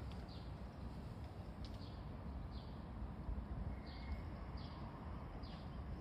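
Faint outdoor ambience: a steady low rumble with short, falling high chirps from birds about six times, spaced unevenly.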